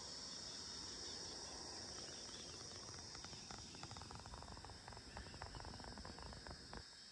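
Insects chirring in a steady, high, even drone, faint, with a scatter of light ticks in the second half.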